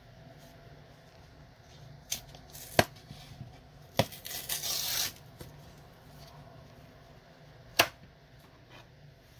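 Waxed paperboard carton being peeled and torn off a cast paraffin wax lantern: a few sharp snaps around two to four seconds in, a rip lasting about a second just after four seconds, and one more snap near the end.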